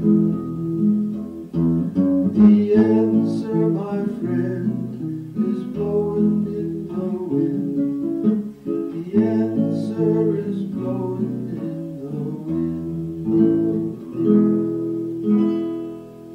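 Folk song on strummed acoustic guitar, laid over the pictures as background music, dying away near the end.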